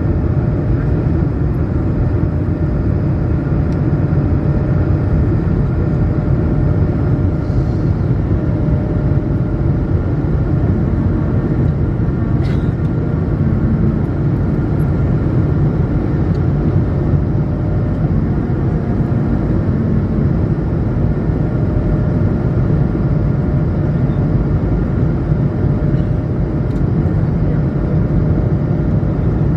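Steady engine rumble and airflow noise inside the cabin of an Airbus A220-100 with Pratt & Whitney PW1500G geared turbofans, holding level throughout, with faint steady tones riding on it and one small click about midway.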